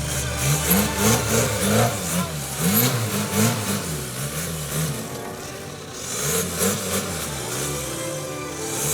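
Off-road 4x4 engine revving up and down over and over, its pitch rising and falling two or three times a second. It eases off briefly around the middle, then picks up again.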